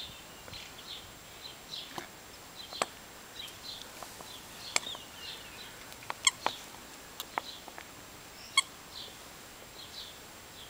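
Small birds chirping over and over, with a few sharp clicks scattered through.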